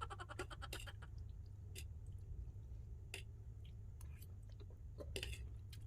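A person chewing a mouthful of shirataki pasta, with soft mouth clicks and smacks: a quick run of ticks at the start, then a few single clicks spread through, over a steady low hum.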